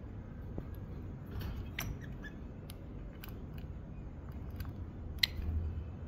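Lovebirds in a cage making scattered sharp clicks and taps, the loudest about five seconds in.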